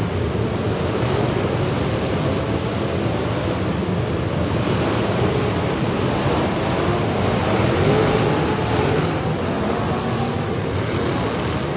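Demolition derby cars' engines running together in a dense, loud roar, with an engine pitch rising and falling as cars rev a few times.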